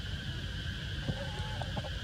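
Steady high-pitched insect drone over a low rumble, with a few short, faint squeaks and clicks about a second in.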